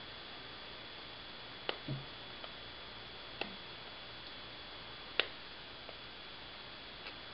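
Small side cutters snipping the leads of a pushbutton switch on a circuit board: three sharp snips about a second and three-quarters apart, the last the loudest.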